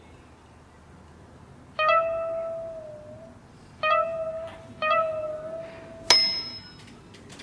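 Music of sparse plucked-string notes: three single notes ring out a second or two apart, then a sharp, bright strike with high ringing tones comes near the end.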